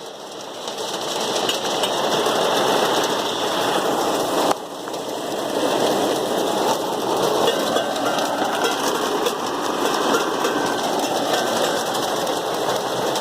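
Heavy rain falling steadily, a dense even hiss. It drops off suddenly at the start and again about four and a half seconds in, then builds back up.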